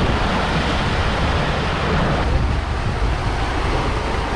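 Steady wind buffeting the microphone over the rushing wash of sea waves, heard from a sailboat under sail.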